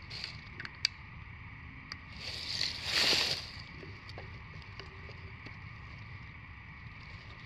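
Dry fallen leaves crackling and rustling for about a second and a half as a person shifts his seat on the leaf-covered forest floor, after a few small sharp clicks.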